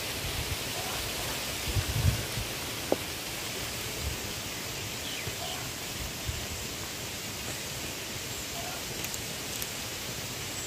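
Steady hiss of elephant foot yam pieces cooking in thick masala in a clay pot over a wood fire. A few low thumps come about two seconds in, and a single click near three seconds.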